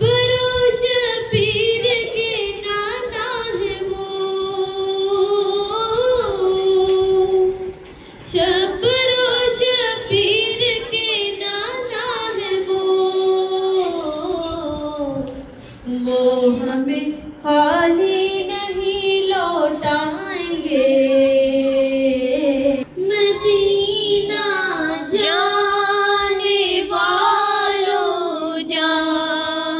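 A woman's high voice reciting a naat unaccompanied, in long held, gliding phrases with short breaks between them.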